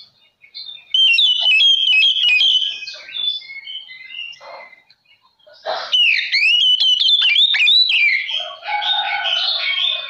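Oriental magpie-robin (kacer) in full, vigorous song: two loud bursts of rapid whistled phrases with quick up-and-down pitch sweeps, followed near the end by a harsher, denser chattering passage.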